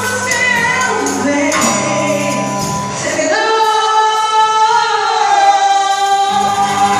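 A worship band and group of singers performing a gospel praise song. About three seconds in, the bass and low instruments drop out and the voices hold long sustained notes; the full band comes back in near the end.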